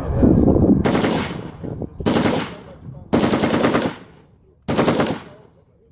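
Browning M1919 belt-fed machine gun firing on full auto in four short bursts, each about half a second long and about a second apart, with a brief echo after each.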